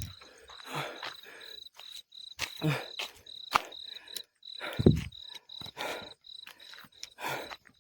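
Crickets chirping in a steady high pulsing trill, with scattered sharp clicks and, about two and a half and five seconds in, two short low sounds that fall in pitch.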